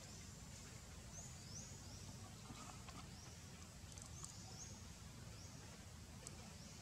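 Faint outdoor ambience: a low steady rumble with a high, short upward chirp repeating in quick groups of two or three throughout.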